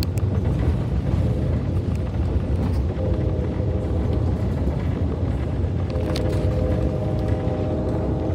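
Steady rumble of a Norfolk Southern freight train's cars passing close alongside, heard from inside a moving passenger train. A faint hum of several steady tones comes in around three seconds and again from about six seconds.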